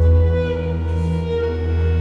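Background music: a slow melody of held notes over a steady low drone.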